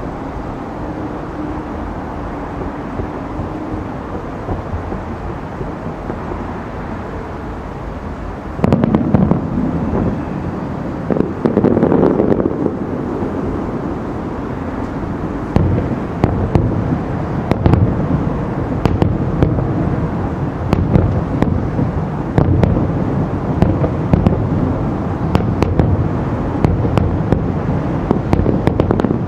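Aerial firework shells bursting about 2.5 km away over a steady low background rumble. A run of deep booms starts about 8 seconds in, followed by many sharp crackling reports through the rest.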